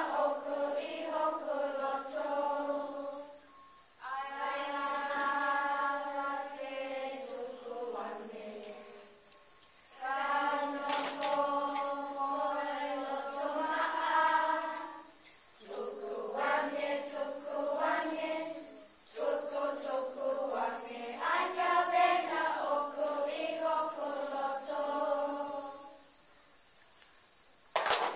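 Group of children singing a Tongan song together in long held phrases with short breaks between them. A steady high hiss runs underneath.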